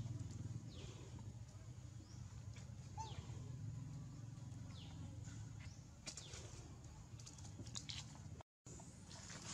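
Faint outdoor ambience: a steady low hum with scattered short, high chirps that fall in pitch, and a few light clicks. The sound drops out completely for a moment near the end.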